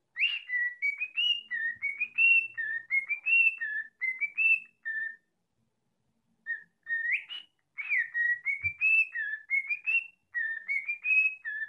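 Cockatiel whistling a tune: a quick run of short, rising whistled notes, breaking off for about a second midway and then starting up again.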